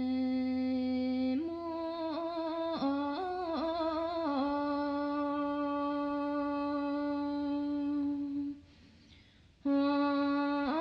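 A solo voice singing a Bhutanese song in long held notes, with quick ornamented turns between them. It breaks off for about a second a little after 8 s in, then takes up a new held note.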